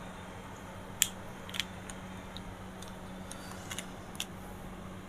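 A marker writing on a whiteboard: a few short, faint clicks and scratches as it touches and lifts from the board, over a steady low hum.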